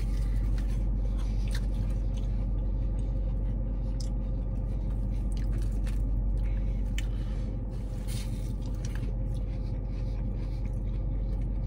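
Biting and chewing a crunchy fried seitan chicken finger, with scattered crisp crunches, over a steady low hum in a car's cabin.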